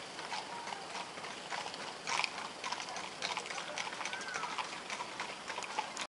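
Horses' hooves clopping on pavement at a walk: an uneven run of sharp clicks.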